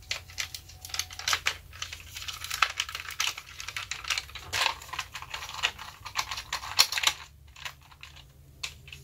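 Irregular small hard-plastic clicks and rattles as a M.A.S.K. Detonator toy vehicle and its Jacques Lafleur action figure are handled and the figure is pushed into the tight cockpit. The clicks come thick for about seven seconds, then thin out.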